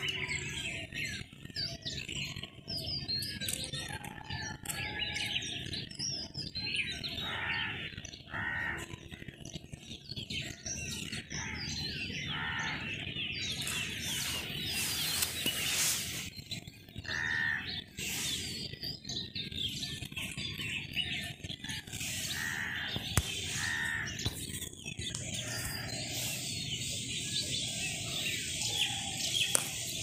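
Birds chirping and calling, many short high calls repeated quickly, over a steady outdoor hiss.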